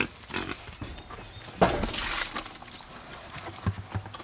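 Pig feed poured from a plastic bucket into a feed pan, with a short rush of grain about one and a half seconds in among scattered knocks and rustles.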